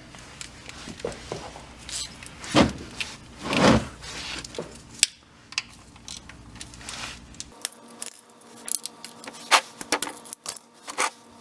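Hand tools and fasteners clinking and scraping while the underbody splash shield is unbolted: scattered sharp metallic clicks, with two louder scraping sounds about two and a half and three and a half seconds in.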